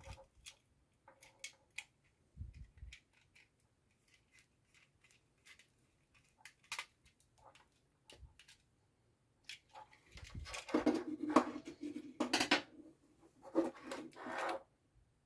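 Scattered small clicks and scrapes of a screwdriver working a wire into a plastic relay socket's screw terminal, then louder rubbing and clattering of plastic wiring parts being handled from about ten seconds in.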